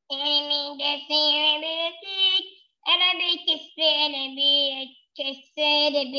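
A child's high voice singing a tune in short phrases, with brief pauses between them.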